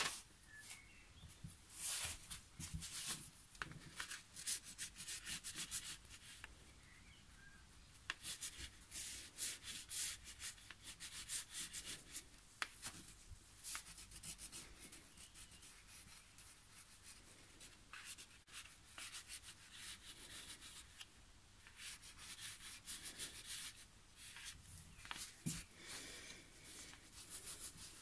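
Wax crayon rubbed quickly back and forth on drawing paper, faint scratchy strokes coming in bunches with short pauses between.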